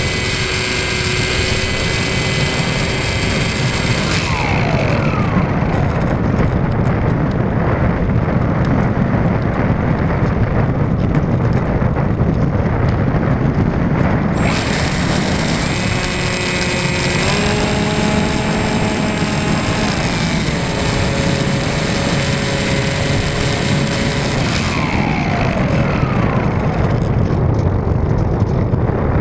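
Model aeroplane's motor and propeller heard from a camera riding on the plane, under a steady rush of wind over the microphone. The motor's whine steps up and down in pitch and slides down about four seconds in and again near the end.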